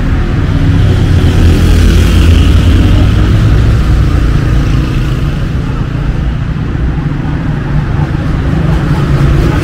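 Busy city street traffic: cars and motorbikes passing close by with a steady engine-and-tyre rumble, louder about two seconds in.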